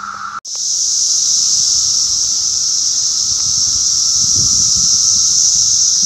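Loud, steady, high-pitched drone of a dense chorus of Brood X periodical cicadas. It cuts in abruptly about half a second in.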